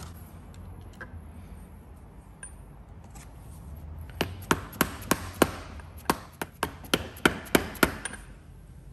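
Mallet tapping a socket used as a seal driver, pressing a new camshaft oil seal into the aluminium cylinder head: about a dozen sharp, light taps, starting about four seconds in and lasting nearly four seconds.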